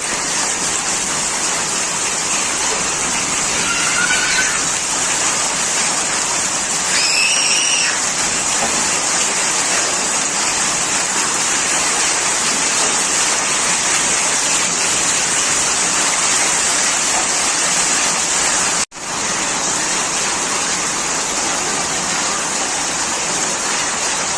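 Hailstorm: hail and rain pelting down in a dense, steady hiss, with a sudden brief dropout about 19 seconds in. Two short faint high calls sound about four and seven seconds in.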